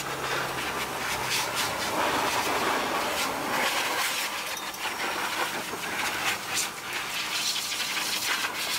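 Handheld hair dryer and a pet grooming blower's hose blowing air on a dog's coat: a steady rushing of air with a few brief surges.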